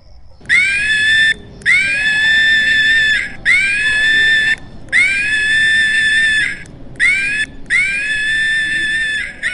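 An animal's loud, high-pitched screaming calls: six long calls in a row, each sliding up at the start and then held for about a second, with short breaks between.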